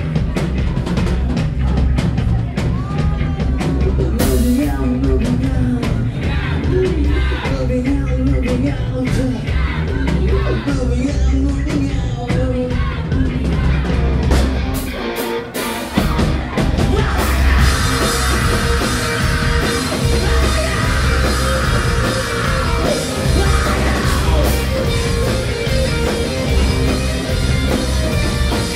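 Live rock band playing loud, with a drum kit, bass, guitar and a male singer. About halfway through the low end drops out for about a second before the full band comes back in.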